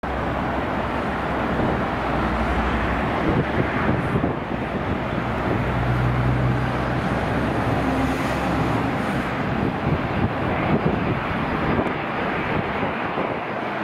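Boeing 777-300ER's twin GE90-115B turbofan engines at takeoff thrust as the airliner accelerates down the runway: a steady, dense jet noise with a low rumble underneath.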